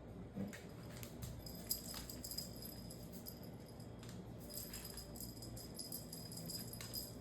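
Light metallic jingling of small bells or tags, shaken in irregular bursts with a few sharp ticks, over a low steady hum.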